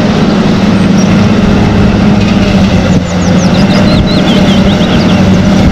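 Wheel loader's diesel engine running steadily as the loader pushes snow with a V-shaped plow blade.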